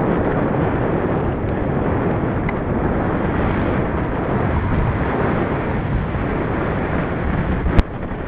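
Wind rushing over the microphone of a camera carried on a moving bicycle, a steady noise. A single sharp click comes near the end, after which the rushing is a little quieter.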